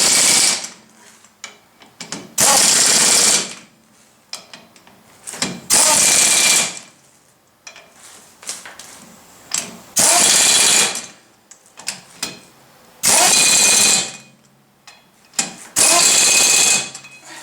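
Impact wrench hammering in six short bursts of about a second each, a few seconds apart, snugging down the 19 mm bolts that hold a wheel spacer to the tractor's hub, with small clicks of the socket being moved between bolts.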